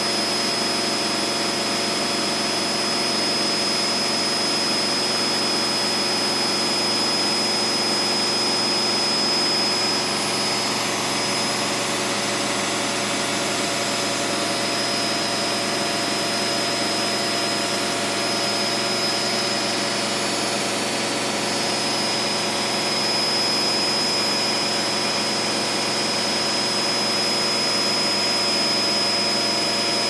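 Hoover DXA 48W3/1-80 front-loading washing machine on its final high-speed spin: a steady machine whine over a rushing hum from the motor and the fast-turning drum, unchanging throughout.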